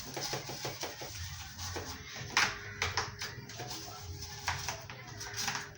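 A toothbrush scrubbing the edges of a fridge door in quick strokes, with a few sharp knocks.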